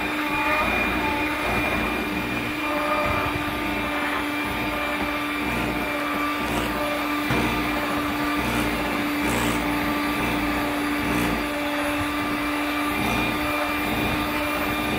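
Electric hand mixer running steadily, its beaters whirring through brownie batter in a glass bowl.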